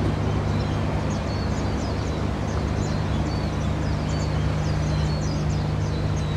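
Steady low engine drone of a passing coast guard patrol ship, with birds chirping repeatedly over it.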